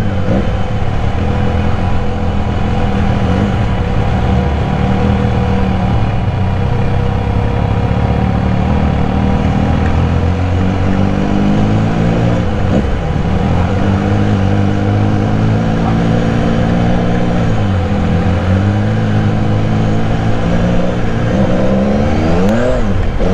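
Benelli Café Racer 1130's three-cylinder engine running at low revs on light throttle while riding slowly, the revs dipping and picking up again a few times and rising briefly near the end.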